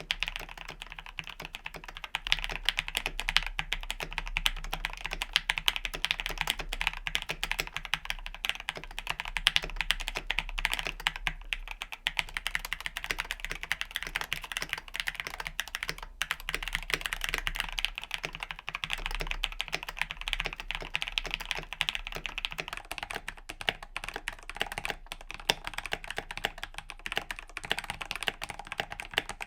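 Continuous typing on a mechanical keyboard with linear switches: dense, even key clacks. At first these are Gateron Ink Black V2 switches, lubed and filmed. After a brief pause about twelve seconds in, the typing resumes.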